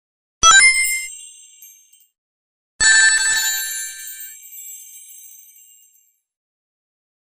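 Two separate bright, shimmering chime sound effects for a magic power. The first strikes sharply and fades over about a second and a half. The second, fuller one comes about two seconds later and fades over about three seconds.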